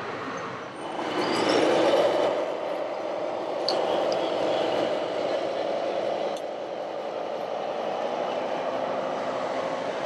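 Radio-controlled scale tipper trucks driving, with a steady mechanical whine that starts about a second in and holds, rising slightly and easing off.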